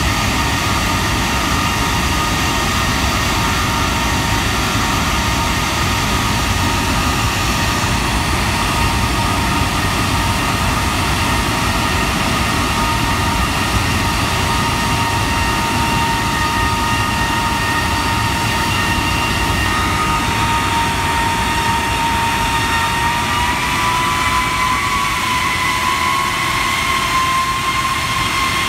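Rolls-Royce Trent 895 three-shaft turbofan on a Boeing 777 running on the ground: a loud, steady rush with a high fan whine on top. The whine rises slightly in pitch about three-quarters of the way through as the engine speeds up a little, then holds.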